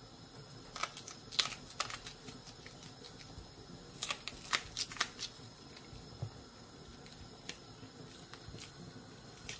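Small kitchen knife cutting a raw onion held in the hand, giving a scattering of crisp, irregular clicks as the blade cuts through the layers, with a cluster of them about four to five seconds in.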